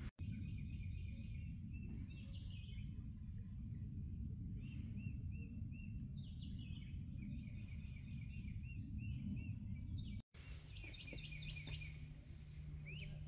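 Birds chirping and calling in quick repeated short notes and trills over a steady low background rumble.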